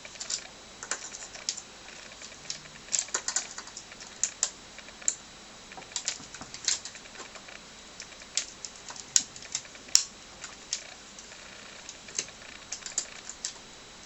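Irregular sharp clicks and ticks of an ALPS key switch being worked loose from a keyboard: pliers grip the stem while the switch's side tabs are pushed in and the switch is pulled up.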